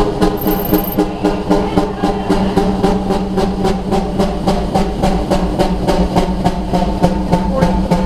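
A large engine running steadily, with an even beat of about five or six exhaust knocks a second over a steady low drone.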